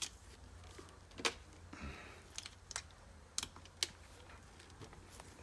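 Light, irregular clicks and taps of a hand tool and small metal parts against an RC car's chassis during disassembly, about half a dozen, the loudest just over a second in.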